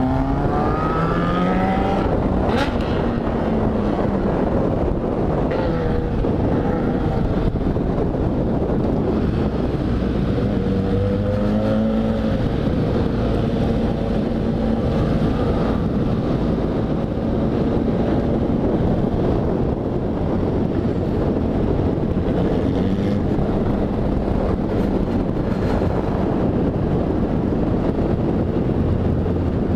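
Motorcycle engine accelerating on the move, its pitch climbing and dropping at gear changes in the first couple of seconds and again around eleven seconds in, then holding steady at cruising speed. Wind rushes over the helmet-mounted microphone throughout.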